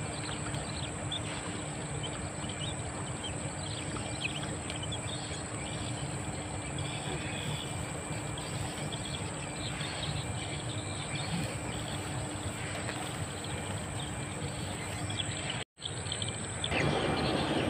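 Outdoor ambience: a steady high-pitched insect drone with scattered faint bird chirps, over a steady low hum and even background noise. Near the end it drops out for a moment, then comes back louder and rougher.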